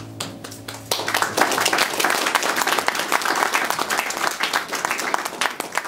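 Audience applauding, the clapping starting about a second in and going on steadily.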